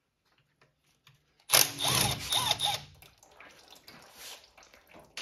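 Cordless power ratchet spinning a fastener under the car. It runs softly from about half a second in, then runs harder for about a second and a half, loosening a bolt at the transmission to drain its fluid.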